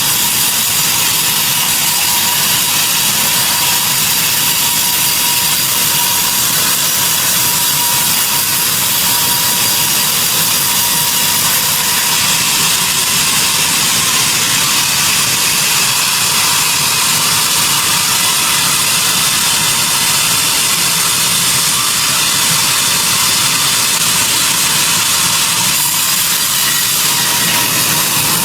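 Sawmill saw running steadily through a mahogany log: a loud, even mechanical whir with a thin steady whine under it, continuing without a break.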